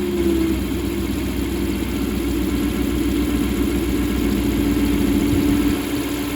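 A 2014 Ram 1500's 5.7 Hemi V8 is idling with a steady whine riding over the engine note; the pitch of the whine settles slightly lower in the first half second. The whine is new since a non-MDS cam and lifter swap and persists with the drive belt removed, so it comes from inside the engine. The owner suspects it is camshaft whine.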